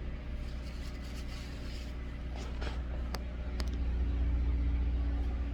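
A steady low hum that swells a little about four seconds in, with a few faint clicks in the middle.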